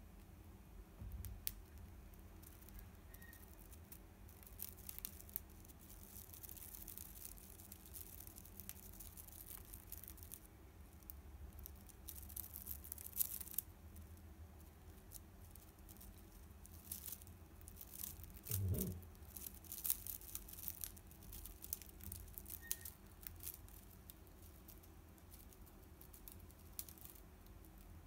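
Budgerigar chewing and tearing at a bundle of dried grass and rope fibres on its perch: faint, dry crackles and ticks in irregular clusters. There is a brief low bump about two-thirds of the way through.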